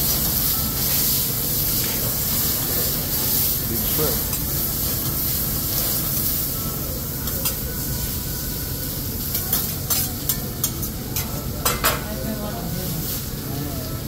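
Food sizzling on a hibachi griddle, a steady hiss. A run of sharp taps comes in the second half.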